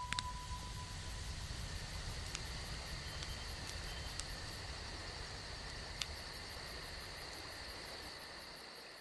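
Faint outdoor ambience: a rapid, high-pitched chirping pulse of several a second over a low rumble of wind, with a couple of faint clicks, fading out near the end. The last note of background music dies away in the first second or so.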